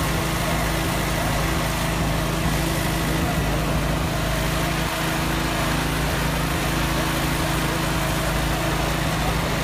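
Steady drone of a small engine running at a constant speed, unchanging throughout.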